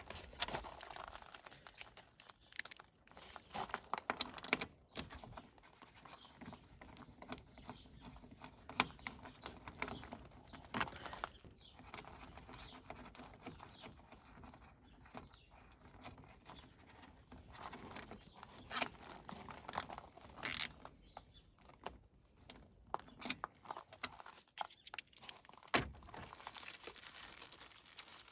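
Scattered small clicks, scrapes and rustling handling noise of a hand screwdriver undoing a screw from a plastic engine-bay panel and driving in a styling bolt with a countersunk washer, with a few sharper clicks and a single heavier knock near the end.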